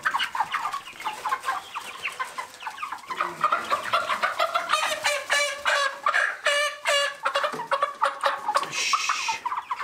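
A flock of young Cornish cross meat chickens, about five weeks old, calling and clucking in many short, overlapping calls. About nine seconds in there is a brief harsh, hissy noise.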